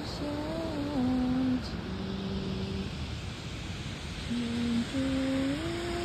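A slow, soft hummed melody: long held notes stepping down and then back up in pitch, over a steady hiss.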